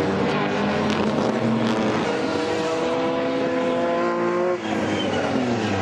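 Historic race cars, among them a TVR Griffith 400 with its Ford V8, passing at full throttle. The engine notes rise in pitch over a couple of seconds, break off suddenly about four and a half seconds in, then fall in pitch.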